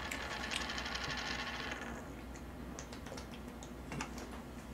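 Faint rapid crackling for about two seconds, then a person drinking from a plastic soda bottle, with a small gulp about four seconds in.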